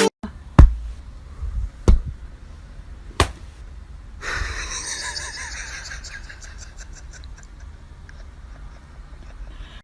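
Three sharp knocks about a second and a quarter apart, then a steady breathy, wheezing sound with a faint rough texture that cuts off suddenly near the end.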